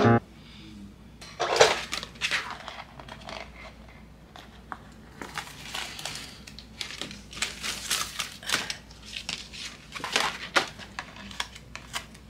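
Paper and cardstock craft pieces being handled on a work table: irregular rustles, crinkles and light taps.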